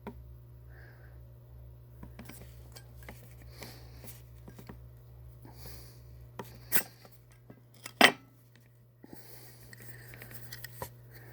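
Handling of a Zippo lighter's metal case: light clicks and rattles, then two sharp metallic clacks about a second apart, the second louder with a brief ring.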